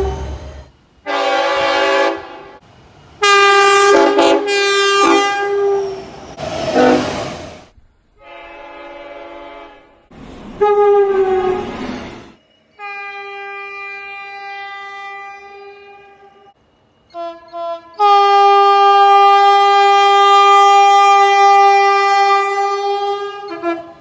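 Train horns sounding in a run of separate blasts that differ in pitch and length. There are short and medium blasts, two quick toots about seventeen seconds in, and a long steady blast near the end that cuts off abruptly.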